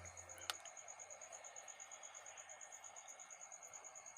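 Faint, quick, evenly spaced high chirping, about eight chirps a second, like a cricket. About half a second in, a low hum stops, with a single click.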